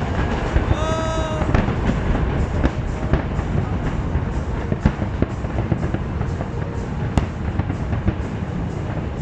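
Fireworks going off in a dense, continuous barrage of cracks and bangs, with music underneath. A brief high-pitched tone rises above them about a second in, and there is a sharp crack about seven seconds in.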